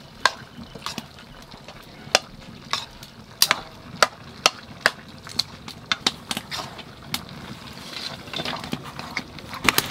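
Irregular sharp clicks and clinks of utensils on a steel plate as spice powder and water are added to chickpea sattu. Near the end comes a rising rustling scrape as the moistened flour is mixed by hand in the plate.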